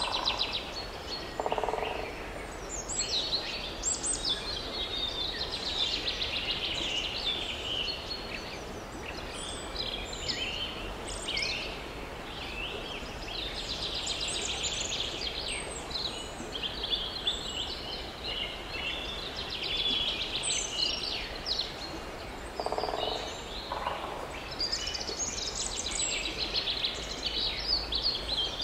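A chorus of songbirds singing together, a steady stream of high chirps and trills, with a short lower call twice, once near the start and once about three-quarters of the way through.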